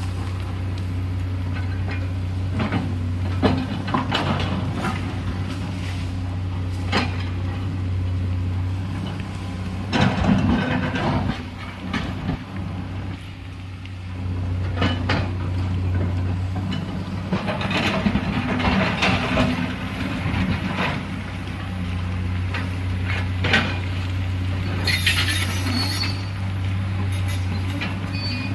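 Diesel engine of a heavy earthmoving machine running steadily under load, dropping back for a couple of seconds about halfway through. Scattered metal clanks and knocks come from the digging. A short hiss comes near the end.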